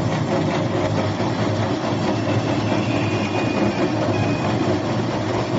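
Hydraulic oil press machine running: its electric motor and hydraulic pump make a steady, loud mechanical drone with a low hum.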